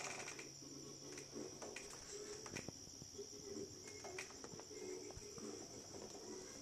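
Crickets chirring in a steady, unbroken high-pitched trill, with a few faint clicks.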